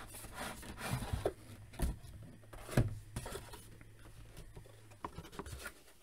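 Cardboard mailer box rubbing and scraping as a carded action figure in its blister pack is slid out of it, with a few light knocks of card and plastic, the loudest about three seconds in.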